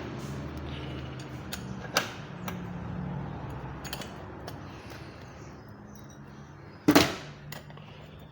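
Metal parts clicking and knocking as the inner CV joint and its washer are fitted onto a halfshaft's splines, with one sharp, loud knock about seven seconds in.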